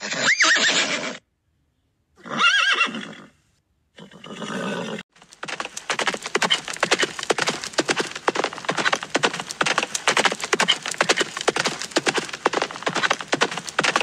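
Horses whinnying three times, short calls with a rise and fall in pitch, then from about five seconds in a herd of horses galloping: a dense, fast run of hoofbeats that carries on without a break.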